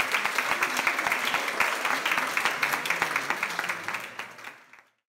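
A crowd clapping and applauding, dying away about four seconds in.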